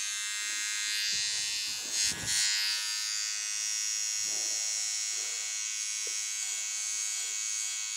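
Philips OneBlade electric trimmer switched on and running with a steady buzz; a brief thump about two seconds in.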